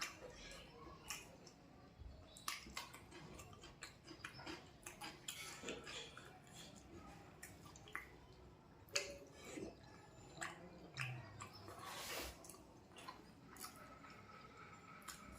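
A person eating close to the microphone: faint, irregular chewing with small wet squelches and clicks.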